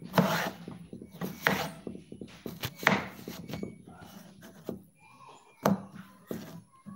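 Kitchen knife slicing a cucumber on a cutting board: irregular knocks of the blade hitting the board, with fainter ticks of the cuts in between.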